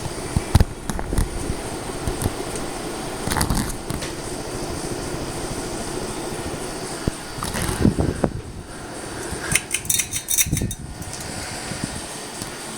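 52-inch CEI GE Vent ceiling fan running with a steady buzzing hum. Irregular knocks and rattles sound over it, with the busiest stretch near the end.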